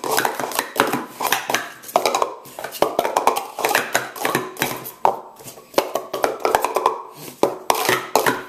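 Speed Stacks Pro Series plastic cups being stacked and unstacked at speed on a StackMat: a fast, continuous clatter of hard plastic cups knocking, sliding and nesting, stopping near the end.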